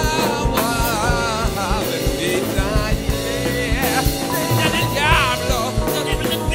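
Jazz band playing, with a voice singing over bass and drums.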